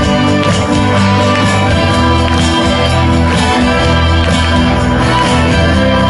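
Instrumental passage of a pop song with guitar and a steady beat, without vocals.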